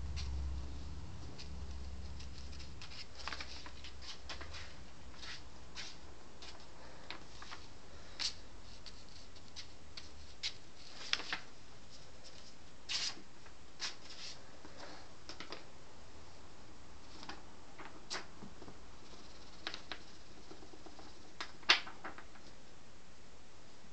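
A sheet of paper rustling and crackling in short, scattered bursts as a kitten bats and pounces at it, with the loudest crackle near the end.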